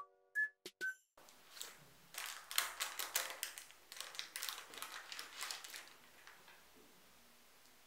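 A few short electronic chime notes, then baking paper crinkling and rustling for about four seconds as it is peeled away from the sides of a set cake, fading out near the end.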